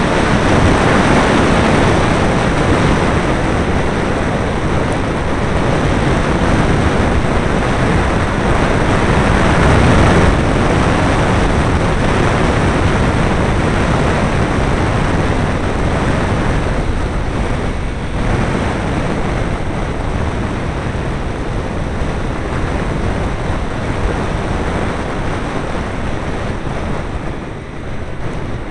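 Open-cockpit Caterham 7 at speed on track: a loud, steady rush of wind over the small onboard camera's microphone, with the car's engine and tyre noise mixed in. The rush drops a little near the end.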